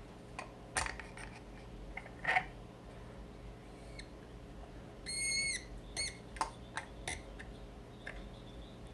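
Light clicks and knocks of a vintage padlock and a small metal bench vise being handled, as the lock is set into the vise jaws. About five seconds in, a short, steady high-pitched tone sounds for half a second.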